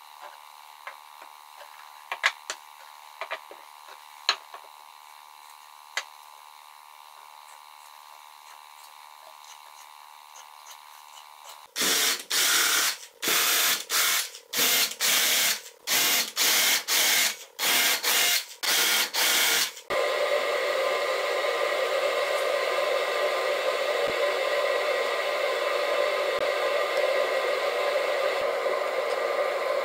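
Lathe chisels clicking lightly as they are set into a wooden rack. Then a DeWalt cordless drill runs in a series of short bursts, drilling holes in a wooden strip. From about twenty seconds in, a steady whooshing noise takes over.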